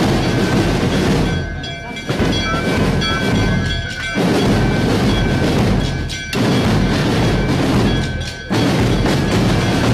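Scout marching band drumming: bass drums and snare drums beat loud phrases with short breaks about every two seconds, and a steady high note is held over the drumming for the first part.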